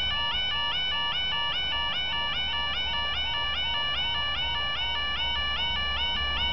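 Level crossing warning alarm sounding: a fast, steady warble stepping between two tones, over and over, warning that a train is coming while the barriers are down.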